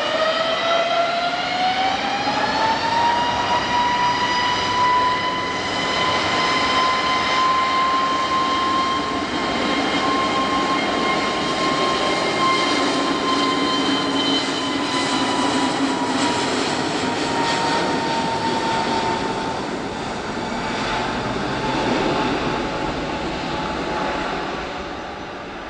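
Airbus A321neo's CFM LEAP-1A turbofans spooling up to takeoff thrust: a high whine rises in pitch over the first few seconds, then holds steady over a loud rushing jet roar as the airliner makes its takeoff roll on a wet runway. The whine fades after about twenty seconds and the roar drops off near the end as the aircraft moves away.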